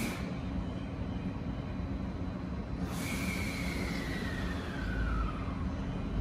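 JR 255 series electric train standing at the platform, its onboard equipment humming steadily. About three seconds in there is a sudden burst of air hiss, followed by a whine that slowly falls in pitch, and a low rumble swells near the end.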